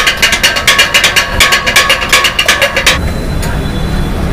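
Kothu parotta being chopped: two steel blades striking a flat iron griddle in a rapid, even clatter, several ringing metal strikes a second. The chopping stops about three seconds in, leaving a steady low kitchen hum.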